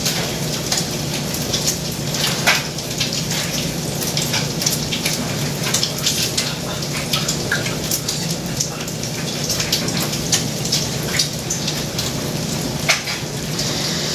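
Food frying in a hot pan: a steady sizzle with many short, sharp crackles and pops of spitting oil, over a low steady hum.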